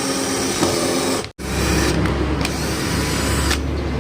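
Subwoofer in a 4th order bandpass box playing a bass-heavy track loudly. There is an abrupt cut about a second and a half in, after which deep bass dominates.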